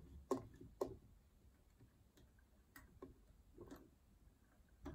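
Faint, irregular clicks from a vintage Elna Lotus SP sewing machine's mechanism as its handwheel is turned slowly by hand, lowering and raising the needle to bring up the bobbin thread.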